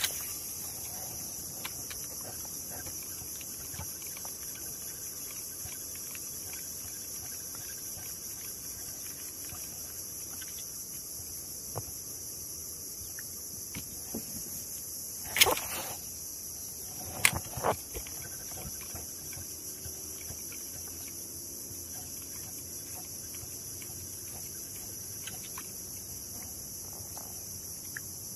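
Steady high-pitched chorus of insects, with a few sharp knocks about halfway through.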